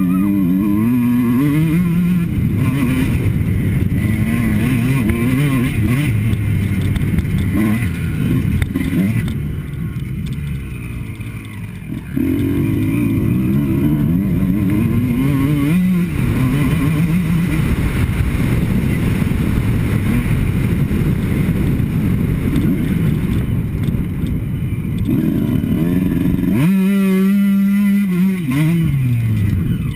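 Kawasaki KX two-stroke motocross engine under hard riding, its pitch climbing and dropping over and over with throttle and gear changes, under heavy wind noise. Its loudness dips off the throttle about ten seconds in, and near the end it holds a high rev before falling away.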